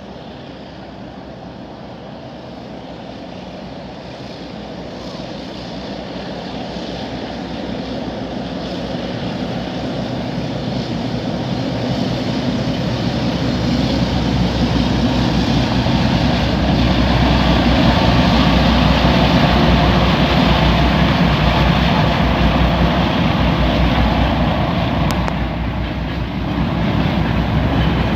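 2M62U diesel freight locomotive with 5D49 diesel engines approaching and passing: a low engine drone that grows steadily louder over about 17 seconds, holds loud, dips briefly near the end and rises again.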